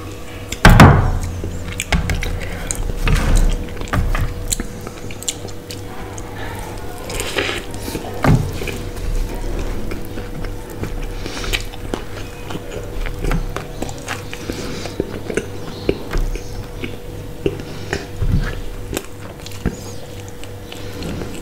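Close-miked eating sounds: repeated biting and chewing of a fried chicken burger, with scattered wet mouth clicks. About a second in there is a loud knock, the loudest sound, as a drinking glass is set down. A faint steady hum runs underneath.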